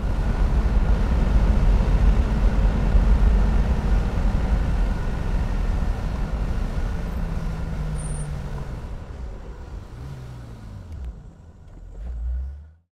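Wind buffeting and road noise in an open convertible on the move, with the engine note falling twice in the second half as the car slows. The sound fades and then cuts off abruptly.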